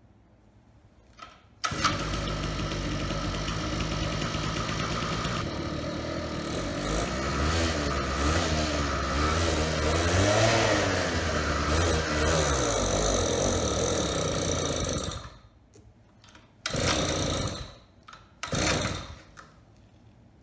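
Small single-cylinder gas engine of an Xcooter Thunder scooter catching on the pull cord and running for about thirteen seconds, its speed surging up and down, before cutting out suddenly. Two more short pulls of the starter follow near the end. The engine is running too lean.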